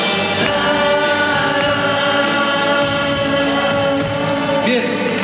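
Live band playing a song: sung vocals on long held notes over electric guitar and the rest of the band.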